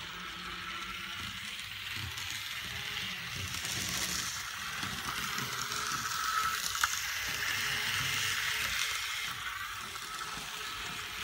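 Kato 2-8-2 model steam locomotive with a Kato mechanism running smoothly around the track: a steady whir of the small motor and gears with a light wheel-on-rail rattle. It swells and fades as the engine comes closer and moves away, with one sharp click about two-thirds of the way through.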